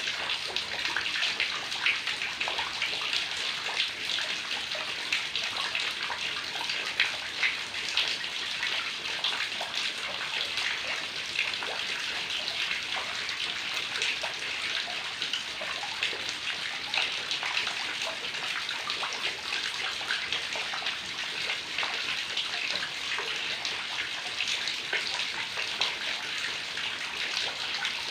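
Heavy rain falling steadily, a dense patter of drops splashing.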